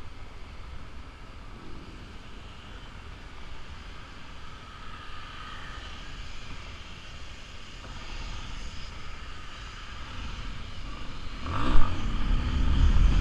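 Yamaha Lander 250's single-cylinder four-stroke engine running under way, then revving up sharply near the end with a rise and fall in pitch and a loud low rumble.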